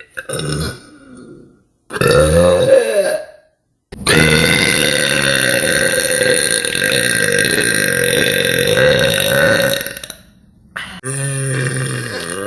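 A woman burping deliberately and loudly: two short burps, then one long drawn-out burp lasting about six seconds, and another beginning near the end.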